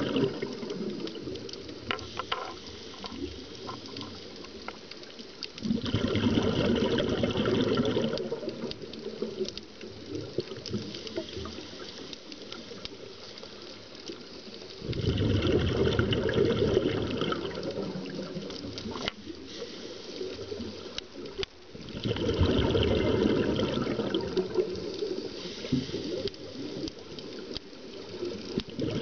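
Scuba diver breathing underwater through a regulator: bursts of bubbling exhalation, each two to three seconds long, come about every seven seconds, with quieter stretches between breaths.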